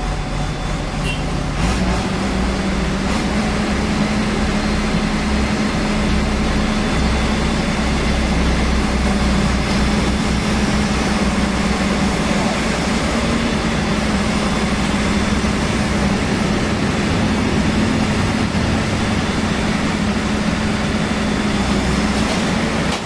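Heavy diesel engine running steadily, its speed stepping up about two seconds in and a little more a second later, then holding.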